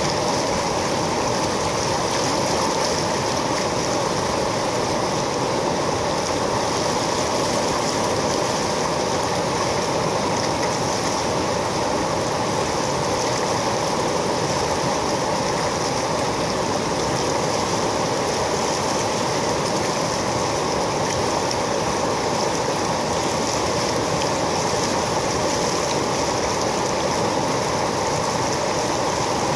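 River rapid: water rushing and splashing steadily over and between boulders.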